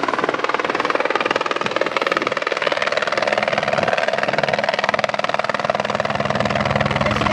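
Helicopter coming in and descending to land, its rotor beating steadily. A low steady hum joins about six seconds in as it nears the pad.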